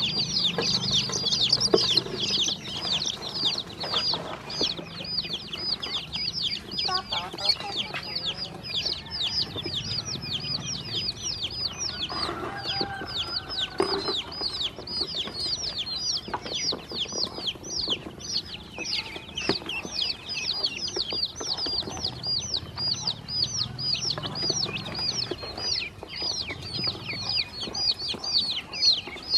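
Baby chicks and ducklings peeping nonstop, a dense stream of short, high, falling chirps, many a second, with a few light taps mixed in.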